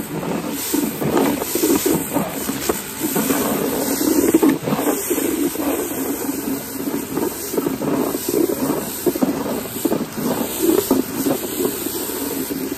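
Kärcher K3 electric pressure washer running with its spinning patio cleaner attachment working over paving slabs: a steady drone from the motor and pump under a hiss of water spray.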